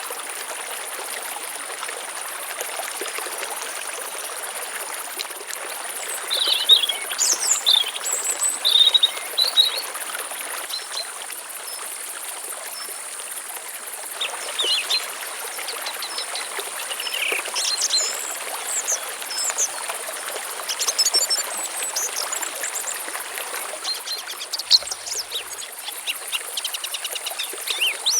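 Steady rush of a flowing stream, with small birds chirping and trilling on and off over it and a constant high-pitched insect drone.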